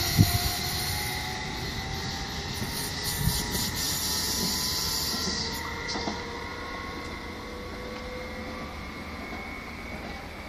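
A SÜWEX electric multiple unit train running away down the line, fading as it recedes: a knock from the wheels at the very start, then a steady motor whine that slowly falls in pitch.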